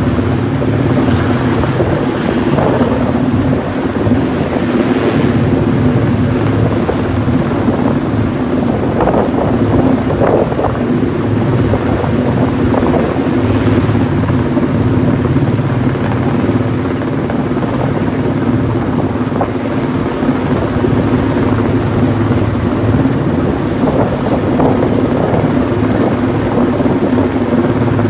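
Helicopter running steadily at close range, its rotor and turbine giving a loud, even drone with a constant low hum.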